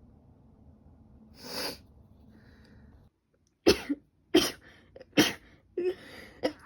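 A woman's allergic sneezing fit: a quick breath in about a second and a half in, then, a couple of seconds later, four short sneezes in rapid succession, about one every 0.7 seconds.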